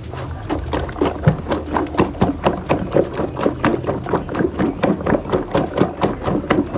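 A hand beating slimy nkui mixture with rock salt in a plastic basin: quick, rhythmic wet slaps, about five a second.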